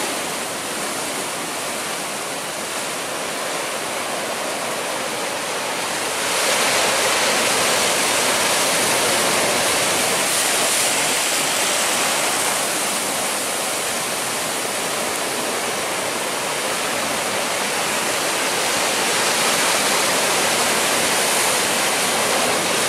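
Heavy ocean surf breaking and washing over rock ledges, a continuous rush of white water that gets louder about six seconds in.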